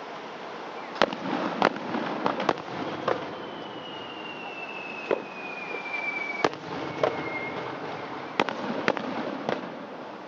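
Aerial fireworks bursting, about a dozen sharp bangs at irregular intervals. In the middle a thin whistle falls slowly in pitch for about three seconds, followed by a short second whistle.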